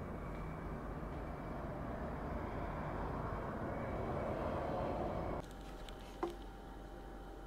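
Steady background noise with a low rumble that builds slightly, then cuts off abruptly about five and a half seconds in to a quieter room tone. A single short click follows about a second later.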